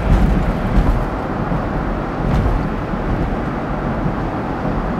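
Steady road and engine rumble inside a moving car's cabin, with the heater fan running on a low setting.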